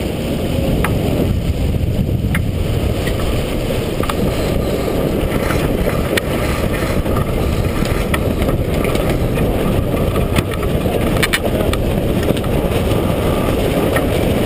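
Steady rushing noise of wind buffeting the microphone and water streaming past the hull of a T-10 sailboat under sail, with a few short clicks.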